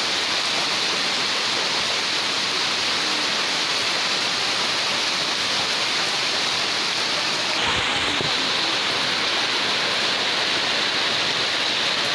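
Heavy rain falling steadily on a tin roof, a dense even hiss. There is a brief low thud about eight seconds in.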